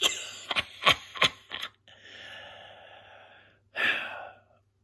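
A person's breathy gasp and long exhaled sigh, with a few sharp clicks in the first second and a half.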